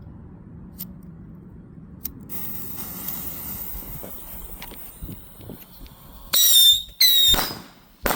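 Whistling fireworks going off: a faint hiss starts about two seconds in, then two loud, shrill whistles about half a second apart, each lasting about half a second and dipping slightly in pitch, and a sharp crack near the end.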